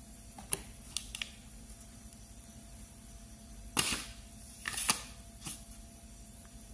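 Handling sounds at a stainless hand-cranked pasta roller as sweet-potato dough is fed through: three sharp clicks in the first second or so, then a few louder short knocks and scrapes about four and five seconds in.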